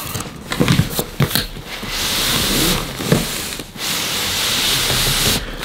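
A fabric carry case scraping and rustling against cardboard as it is slid out of a long cardboard box, with a few sharp knocks and clicks in between.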